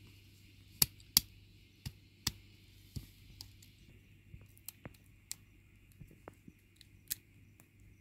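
Sharp cracks of a hand-held stone striking walnuts on hard ground, five in the first three seconds with the loudest about a second in. They are followed by smaller snaps and clicks as the cracked shells are broken apart by hand.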